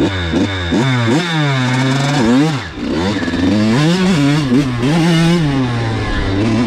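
Kawasaki KX100 two-stroke single-cylinder dirt bike engine revving up and down as it is ridden, its pitch climbing and falling several times, with a brief drop near three seconds in and a steadier, lower note near the end.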